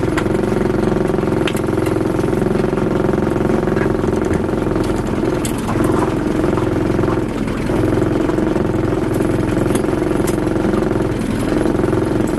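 Small boat's outboard motor running steadily at trolling speed, with a few faint clicks of handled fishing gear.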